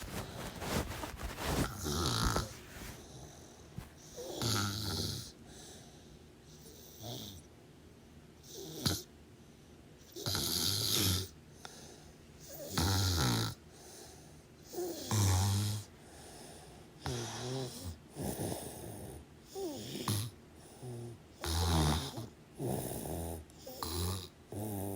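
Snoring: a snore about every two seconds, turning to quicker, shorter snorts in the second half.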